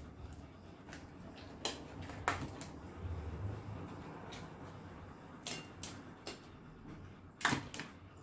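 Eating sounds from a meal of crab and grilled squid: a handful of separate sharp clicks and cracks, the loudest near the end.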